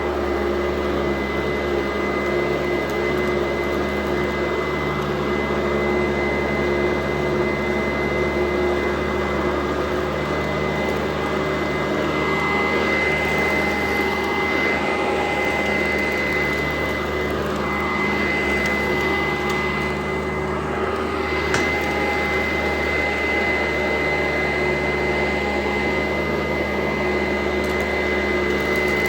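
Sanitaire SC899 upright vacuum cleaner running steadily with a high whine over its motor noise. The sound wavers for several seconds midway, and there is a single sharp click about three quarters of the way through.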